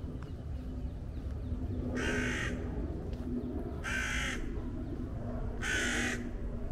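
A crow cawing three times, harsh calls about two seconds apart, over a low steady background rumble.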